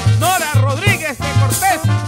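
Upbeat Colombian porro band music: a brass melody of short arching phrases over a steady, bouncing bass line.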